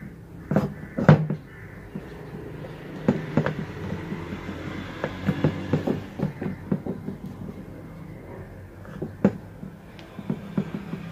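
Small screwdriver tip scraping and clicking against a brass tap spindle as a new rubber washer is pressed into its seat, with irregular sharp clicks.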